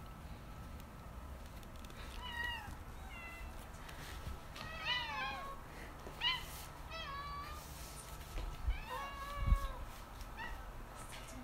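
Domestic cat meowing repeatedly, about seven short meows, some rising then falling in pitch. A low thump comes about nine and a half seconds in.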